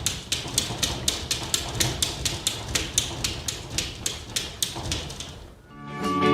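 Rapid, even clicking or tapping, about five clicks a second, fading out about five seconds in; music begins just at the end.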